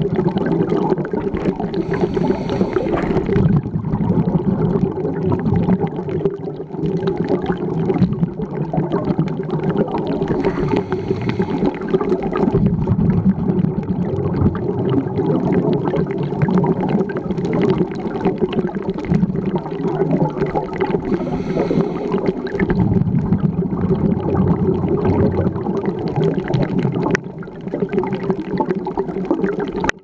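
Underwater ambience picked up by a diver's camera: a steady low rush of water noise, with a burst of bubbling three times, about ten seconds apart, typical of a scuba diver exhaling through the regulator.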